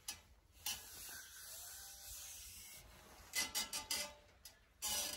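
A hand rubbing across a bare wooden worktop: one long sliding rub, then several short brushing strokes near the end.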